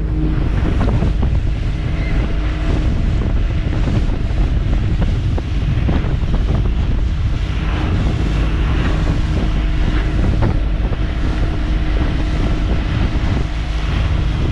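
Mariner outboard motor running steadily at speed, its hum under heavy wind buffeting on the microphone and the rush of water and spray from the boat's wake.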